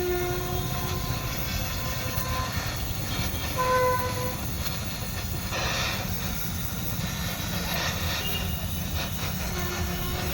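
A steady low engine rumble, with a few short horn-like tones sounding over it.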